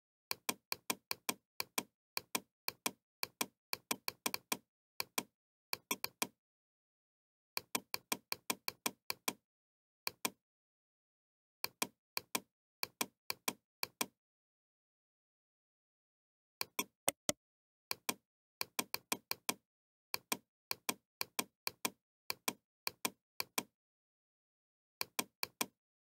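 Computer mouse clicks in quick runs of several a second, with pauses of dead silence between the runs.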